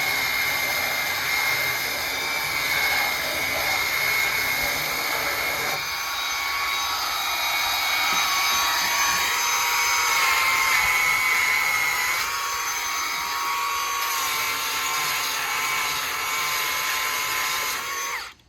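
Milwaukee belt sander running steadily with a high whine over a hiss. Its tone shifts a couple of times, and the sound cuts off just before the end.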